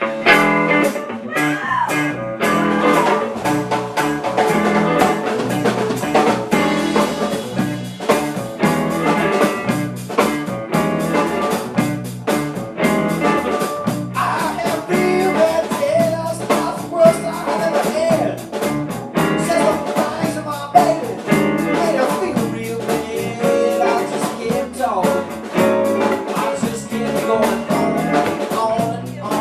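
Instrumental blues intro: guitar played with a steady, even rhythm before the vocals come in.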